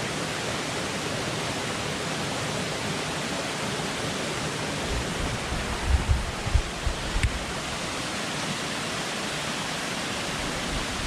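Steady rushing of a waterfall, an even noise with no pitch. About five to seven seconds in, a cluster of low thumps rises above it.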